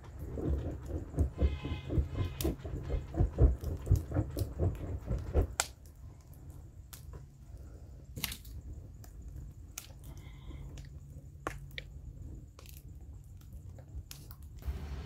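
A hand fan waved rapidly over a wood fire, its air gusts swishing about four times a second for the first five seconds or so. After that the burning firewood crackles, with scattered sharp pops.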